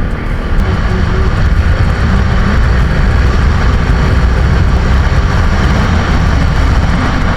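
Motorcycle riding at speed: a steady rush of wind over the microphone with the engine running underneath.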